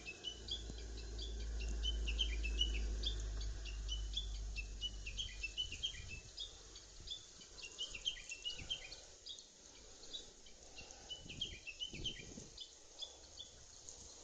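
Many small birds chirping in quick, short, high notes throughout, over a low rumble that fades out about halfway through. A few soft low thumps come in the second half.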